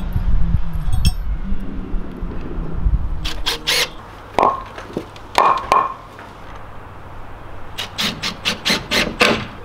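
Cordless drill running under load, driving screws into a timber frame, for the first few seconds. Then hammer blows on wood, a few single strikes with a short ring and, near the end, a fast run of about eight strikes at roughly four a second.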